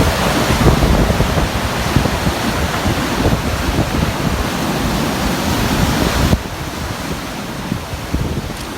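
Sea waves surging and breaking loudly against a rocky basalt shore in a continuous churning wash. About six seconds in the sound drops suddenly to a quieter surf.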